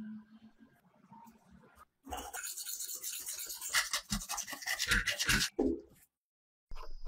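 Scrubbing and scraping on a rusty metal motorcycle part crusted with old coating: a fast run of scratchy strokes that starts about two seconds in and cuts off suddenly near the end.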